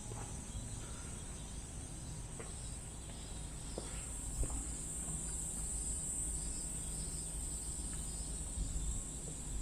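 A steady, high-pitched chorus of insects buzzing without a break, over a low outdoor rumble.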